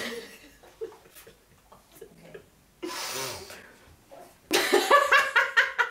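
A woman's vocal reactions: a sharp, noisy breath at the start and a breathy sigh about three seconds in, then loud, rapidly pulsing laughter for the last second and a half.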